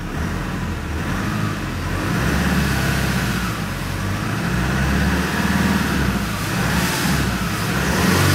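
Nissan Navara D40's YD25 2.5-litre four-cylinder turbo-diesel running, heard from inside the cab, revved lightly about three times, the revs swelling and easing each time.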